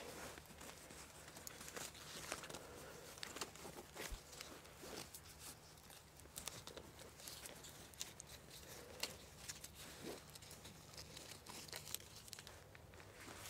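Wych elm bark strips being wrapped and pulled tight around the crossing of two hazel poles: faint, irregular rustling with many small crackles and clicks.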